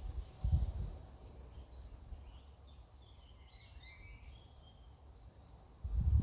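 A small bird chirping: a quick run of short, high, downward-slurred notes in the middle, with a low rumble at the start and again near the end.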